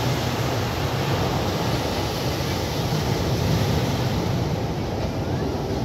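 Sea surf breaking and foaming up against shoreline boulders, a steady rush of waves.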